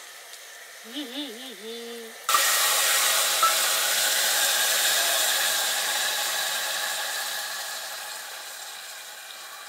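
A hot cooking pan bursts into a loud hiss and sizzle about two seconds in, the sound of liquid or wet food hitting hot oil, then slowly dies down.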